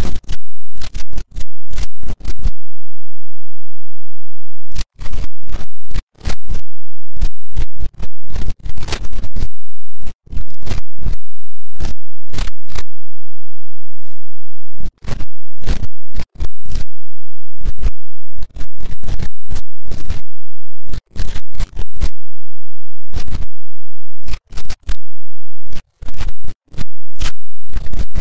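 Harsh, heavily distorted and clipped digital audio: loud crackling bursts of noise following one another in quick succession, broken by short gaps, some holding a faint low hum.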